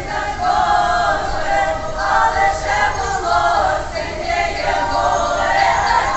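Mixed chorus of men's and women's voices singing with the pit orchestra in a live stage performance, heard from far back in the theatre hall.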